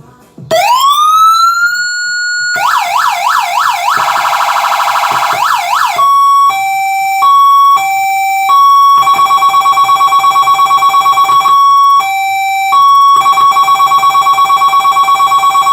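Code 3 model 3942 electronic siren sounding through its horn speaker and cycling through its tones. About half a second in it rises and holds high. A couple of seconds later it switches to fast up-and-down sweeps. It then changes to a two-note high-low alternation, broken up by stretches of a fast-pulsing tone.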